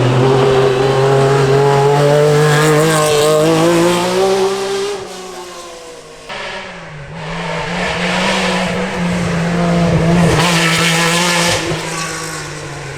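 Rally car engines running at high revs. The first engine note holds, then drops away about five seconds in; a second engine note builds to a loud peak and eases off near the end.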